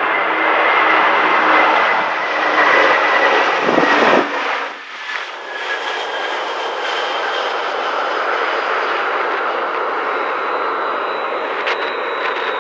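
Jet airliner engines passing low overhead on landing approach, the Airbus A319's whine sinking slightly in pitch as it goes by. About four seconds in the sound cuts abruptly to a second airliner's engines, steadier, with a high whine.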